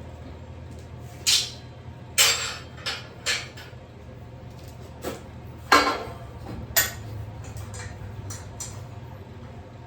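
Irregular sharp metal clanks and clinks, about eight over several seconds, the loudest about halfway through, over a steady low hum.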